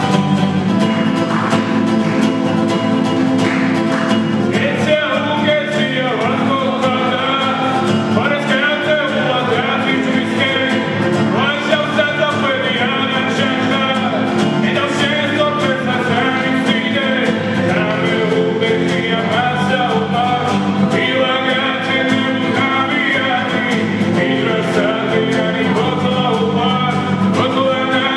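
Music: a song played by instruments, with a voice singing over the accompaniment from about five seconds in.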